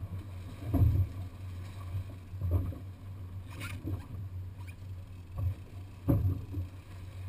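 Water slapping against the hull of a small fishing boat, four irregular dull thumps over a steady low rumble.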